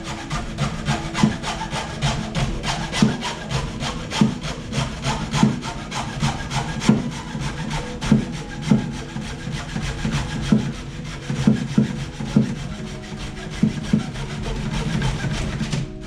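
Hand saw cutting with steady back-and-forth strokes, about one and a half a second, trimming a piece one inch shorter.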